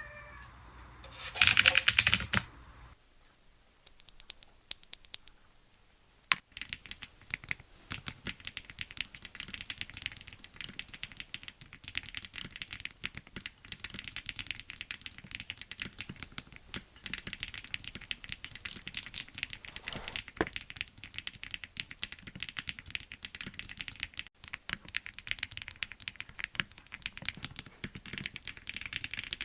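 Mechanical keyboard with WuQue Red Arowana linear switches being typed on, fast and continuous, a steady run of key clicks from about six seconds in. About a second in there is a brief loud noise, the loudest thing here, followed by a few seconds of only scattered clicks.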